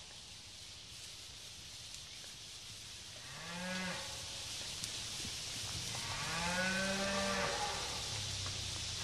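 Cattle mooing twice: a short moo about three seconds in and a longer one about six seconds in, each rising at the start and then held, over a steady background hiss.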